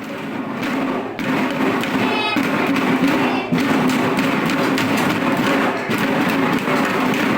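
A young children's drum band beating their drums together while practising basic strokes: a dense, steady run of many overlapping strokes that builds up over the first second.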